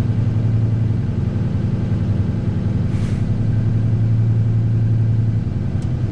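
Diesel engine of a straight truck, heard from inside the cab, held at raised revs (about 1100 to 1500 rpm) while the air compressor builds tank pressure toward governor cutout. About three seconds in there is a brief faint hiss of air, and the engine note eases near the end.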